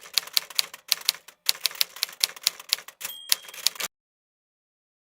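Keys of a 1905 Hammond typewriter being struck in quick bursts, sharp clacks about four to five a second with short pauses between runs. A brief ring sounds about three seconds in, and the typing stops about a second later.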